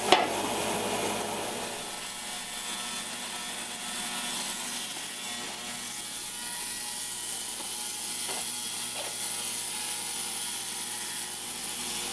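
Eastwood heated ultrasonic cleaner running with carburetor parts in a bath of soapy water: a steady high-pitched hiss. A sharp clack right at the start as the stainless lid is set on the tank.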